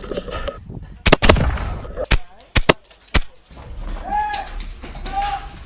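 Airsoft guns firing about six sharp single pops over two seconds, followed by two short shouted calls.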